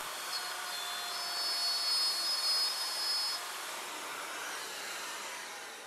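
Festool plunge router running with a dust-extraction hose attached, cutting a mortise into a solid cherry table leg: a steady whir with a faint high whine through the first few seconds, easing off near the end.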